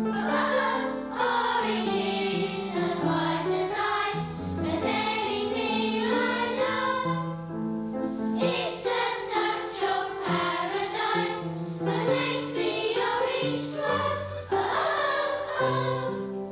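A choir singing a song over instrumental backing, with a bass line stepping from note to note.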